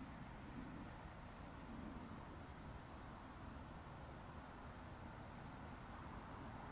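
A small bird chirping in short, high notes about once a second, over a steady low rumble.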